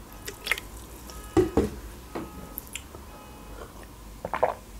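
A drink being poured into a glass, ending in a few drips, with a few short knocks, the loudest about one and a half seconds in; near the end, gulps as the drink is swallowed from the glass.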